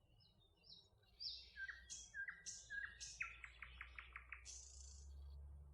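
A small songbird singing one patterned phrase. It opens with a few short high notes, then repeats a two-part note three times, runs into a quick series of about five clipped notes, and ends on a high buzzy note. A faint low rumble builds under it near the end.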